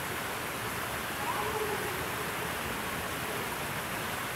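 Steady rushing outdoor ambient noise, with a few faint, distant voice-like sounds rising and falling about a second in and again near the end.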